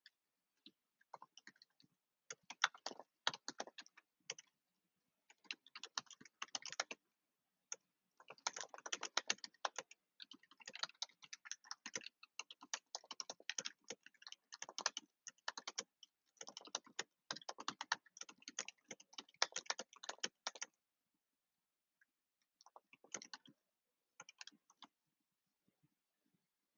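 Computer keyboard typing in quick runs of keystrokes with short pauses, quiet throughout. The typing stops about three quarters of the way through, and a few last clicks come near the end.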